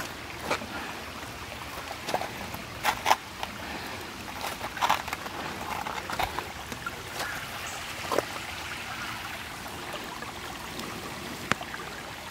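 Shallow creek trickling over rocks in a steady hiss, broken by scattered sharp knocks and clicks, several close together about 3 and 5 seconds in.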